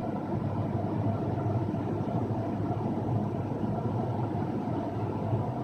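Cessna 172's piston engine and propeller running steadily, heard inside the cockpit as an even drone.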